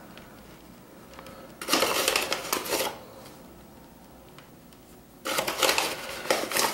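Handfuls of flour scattered onto a wooden worktop, making two gritty rustling bursts about a second long each, one about a second and a half in and the other near the end.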